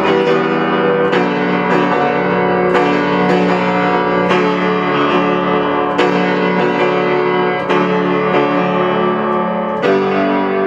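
Piano or keyboard music playing loudly: held chords, with new notes struck about once a second.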